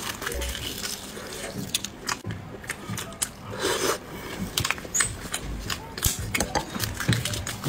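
Close-miked eating: chewing and mouth smacks on a mouthful of braised 13-day fertilized egg (huozhuzi), with small crackles of eggshell being peeled by plastic-gloved fingers and a brief wet slurping sound about halfway through.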